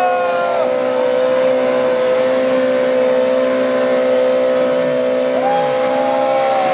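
Superbike engine held at steady high revs through its exhaust. A second engine's pitch rises and falls briefly about five seconds in.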